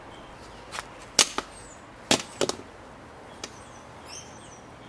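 A handful of sharp, separate clicks and taps, the loudest a little over a second in, and a bird chirping briefly near the end.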